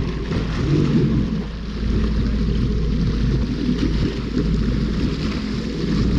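Motorboat under way at speed: a steady rush of wind on the microphone and water churning past the hull, with the engine running underneath.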